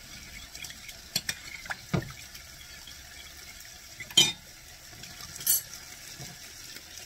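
Metal spoon stirring sour cream and water in a glass measuring cup, clinking against the glass in several sharp clicks, the loudest a little after four seconds in. Faint sizzling of pork sautéing in a pan underneath.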